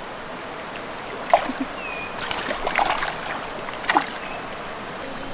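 Water sloshing and splashing around a person wading in a shallow river pool, with sharper splashes about a second and a half in and again near four seconds. Under it runs a steady high insect drone.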